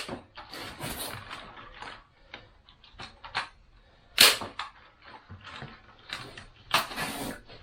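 Staple gun firing twice, about two and a half seconds apart, tacking chicken wire to a wooden frame, with quieter rustling of the wire being handled between the shots.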